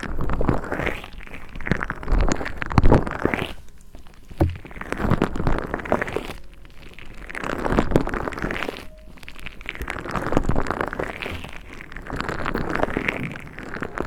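Crunchy, crackling squishing close to the microphone in about six swells of one to two seconds each: a mesh stress ball squeezed and worked against a binaural ASMR microphone.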